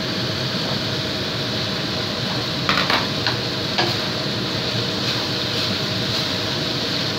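A wooden spatula stirring thick chicken curry in a wok, with a few sharp clicks of the spatula against the pan near the middle, over a steady background hiss.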